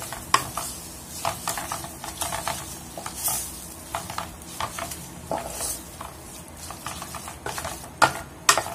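Wooden spoon stirring spaghetti in tomato paste around a nonstick pan: irregular soft scrapes and knocks, with a few louder knocks near the end.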